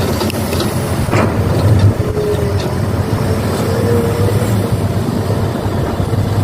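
Steady engine-like drone of radio-controlled model excavators and dump trucks at work, with a few sharp clicks about a second in.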